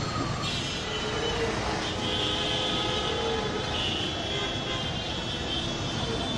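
Busy street ambience: steady road traffic noise, with vehicle horns held briefly about two seconds in and again about four seconds in.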